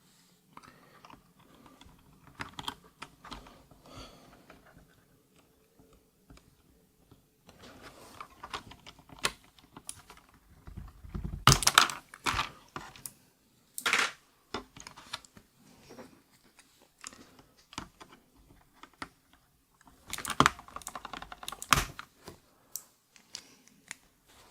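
Plastic clicks, scrapes and knocks from a hot-swap mechanical keyboard as a stiff switch is pried out of its socket, with a few louder snaps around the middle and again near the end.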